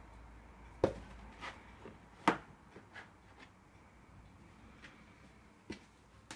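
A cardboard cereal box knocked about and scraped as a cat pushes its head inside and paws at it: scattered sharp taps and knocks, the loudest about one second and two seconds in.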